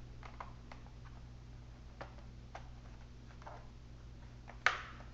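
Light, scattered clicks and taps of small laptop parts being handled while fitting a hard drive and its screws, with one sharper click near the end.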